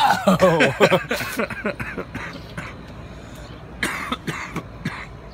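A man's voice crying out in a wavering, falling "whoa" during the first second, then a few short, sharp bursts of noise.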